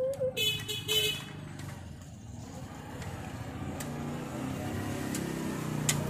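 Light metal clinks of a rusty bicycle chain being worked back onto the rear sprocket by hand, over a steady low engine hum. A held tone fades out in the first second.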